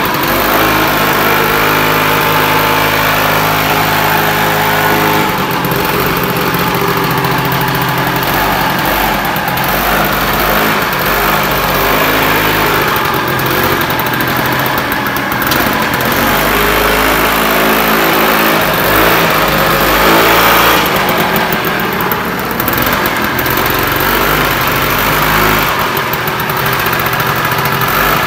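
Old Kinetic Honda scooter's small two-stroke engine running just after a hard kickstart, idling with its pitch rising and falling several times as the throttle is worked.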